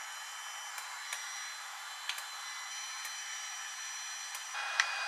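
Braun Silk-expert Pro 5 IPL hair-removal device running with a steady fan whir and a few faint high tones, with sharp clicks as it flashes on the skin. The whir gets louder about four and a half seconds in.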